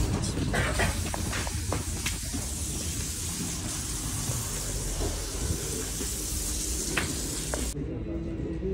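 A steady hiss with a few faint knocks in the first couple of seconds. Shortly before the end it cuts off abruptly and a man's chanting voice begins.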